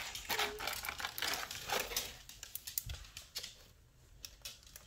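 Scattered light clicks and taps of hands handling small plastic toy pieces and packaging, thinning out near the end.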